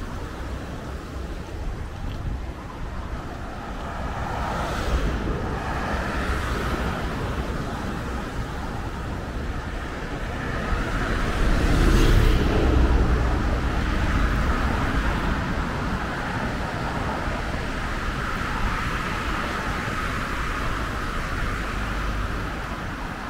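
Road traffic passing alongside and surf breaking on the shore, over a steady low rumble of wind on the microphone of a moving bicycle. The sound swells loudest about halfway through.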